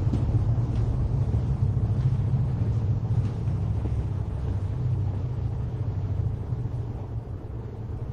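A steady low rumble, slowly fading over the last few seconds.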